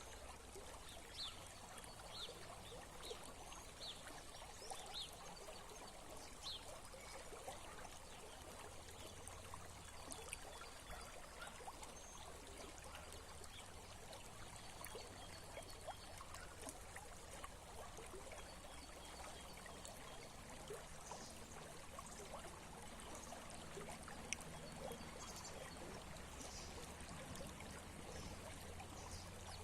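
Small stream trickling and babbling steadily over stones, with faint short high chirps over it, most often in the first few seconds.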